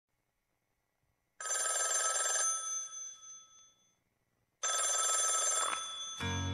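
Old-fashioned telephone bell ringing twice, each ring a rapid trill lasting about a second and dying away, with a pause between. The song's music starts just before the end.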